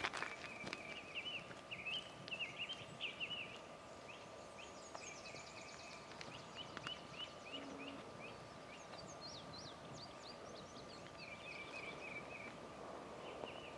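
Faint songbirds chirping and trilling in spring woods: several birds, with many short repeated notes and quick falling whistles. A faint steady high hum runs underneath, and there is a single click at the very start.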